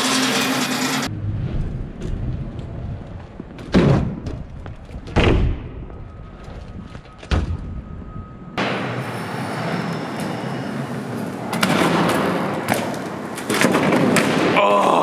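BMX bike being ridden on city pavement: tyres rolling, with three heavy landing thuds near the middle and sharp clicks and knocks near the end.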